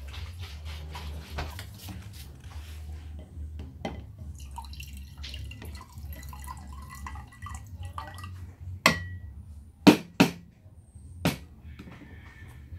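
Water poured into a clear drinking glass, splashing into it, followed by four sharp knocks as the pitcher and glass are handled on the table, over a low steady hum.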